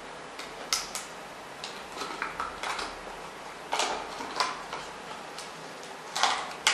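Clear plastic product box being handled and folded, its stiff sheet giving scattered short clicks and crackles, louder and closer together near the end.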